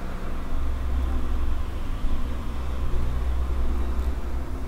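Steady whir of a small motor, with a low hum beneath and an even hiss above it.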